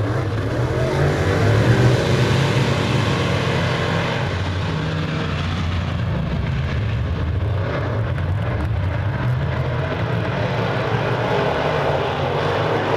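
A pack of open-wheel modified dirt-track race cars running laps: a steady, dense engine drone that swells briefly about two seconds in.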